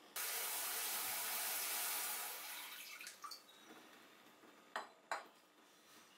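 Water running, starting suddenly, steady for about two seconds, then tapering off. Two light clicks follow near the end.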